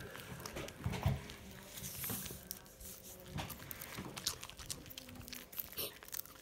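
A Cairn Terrier chewing and crunching pieces of prawn cracker, with scattered crisp crackles and a soft thump about a second in.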